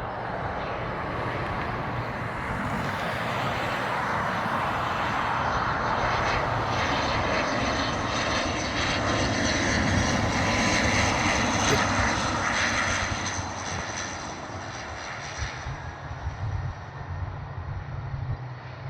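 ATR turboprop airliner's engines and propellers droning as it passes, growing louder to a peak a little past the middle and then fading away.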